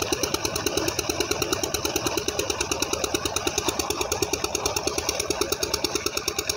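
Diesel engine driving a tubewell pump, running steadily with an even, fast thudding of about seven beats a second. Water gushes from the outlet pipe into the tank and splashes underneath it.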